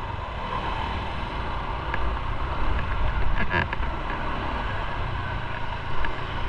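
Motorcycle engine running with steady wind and road noise while riding through traffic, with a short cluster of brief clicks about three and a half seconds in.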